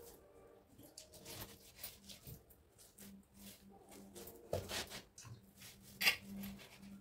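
Hands kneading flour dough in a clay bowl: irregular soft squishing and pressing strokes, with a few louder slaps of the dough, the loudest about six seconds in.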